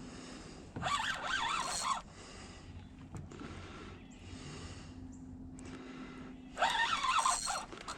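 Fishing reel drag screaming in two bursts, each about a second long, as a hard-running jack crevalle strips line off the reel.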